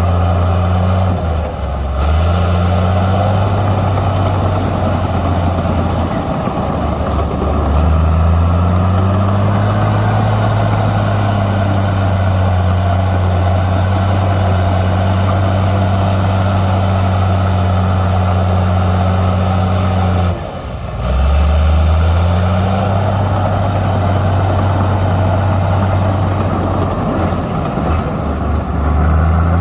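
Heavy diesel engine of earthmoving machinery running under load, a steady low note that sags in pitch several times (about a second in, around six seconds, just past twenty seconds and near the end) and climbs back each time.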